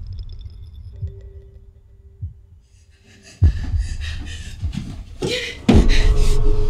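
Horror-film sound design: a few low, heartbeat-like thuds, then a loud hit about three and a half seconds in that opens into a dense, harsh texture, building to a heavy jump-scare stinger near the end that leaves a held tone ringing.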